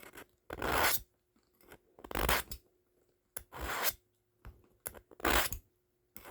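Steel knife blade drawn through a knife sharpener's coarse stage, four rasping strokes about a second and a half apart.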